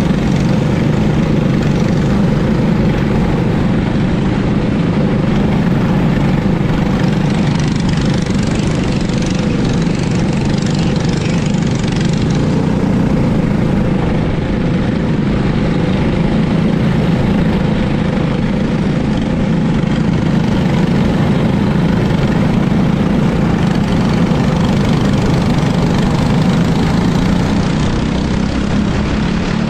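Briggs & Stratton LO206 single-cylinder four-stroke kart engines running steadily in a tight pack, heard from onboard one kart, with no big changes in revs.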